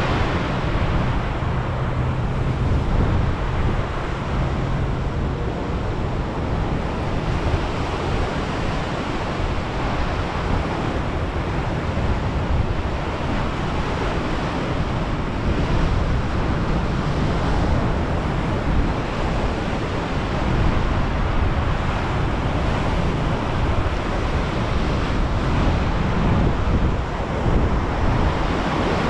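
Steady rush of wind buffeting a bare, handlebar-mounted action-camera microphone on a moving bicycle, with storm waves surging and breaking underneath.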